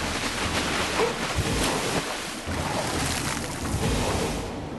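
Rushing, splashing sea water and surf as a body bursts up out of the sea, turning duller near the end.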